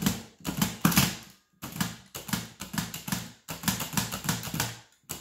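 Erika Picht mechanical Braille writer being typed on: keys pressed as chords, each stroke a sharp clack as the dots are embossed and the carriage steps on, about two to three strokes a second.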